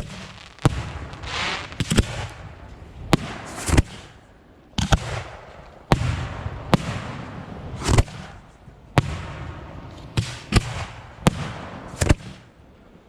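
Fireworks going off in a rapid, irregular string of sharp bangs, roughly one a second, with hissing and crackle between the reports.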